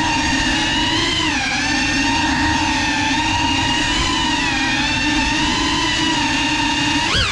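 Brushless motors and propellers of a GEPRC Cinelog 35 FPV cinewhoop drone whining in flight, the pitch wavering with throttle changes. Near the end the pitch drops sharply and climbs back as the throttle is cut and punched again.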